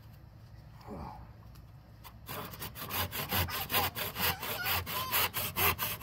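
Hand saw cutting wood with quick back-and-forth strokes, about four a second, starting about two seconds in.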